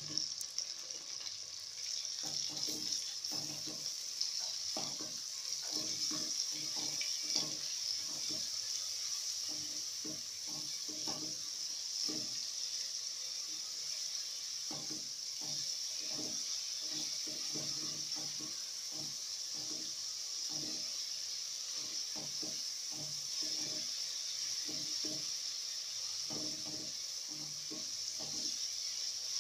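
Onions, green pepper and grated carrots sizzling in oil in an aluminium pot, with a spatula stirring and scraping through them in many short, irregular strokes.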